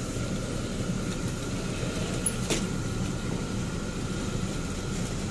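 Car engine idling, a steady low rumble heard from inside the cabin, with a single click about two and a half seconds in.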